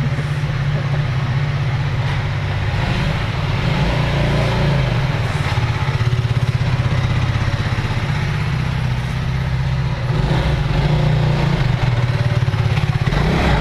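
Aprilia RS4 125's single-cylinder four-stroke engine, on its stock exhaust, running at a steady idle; the note wavers about four seconds in and gets slightly louder about ten seconds in.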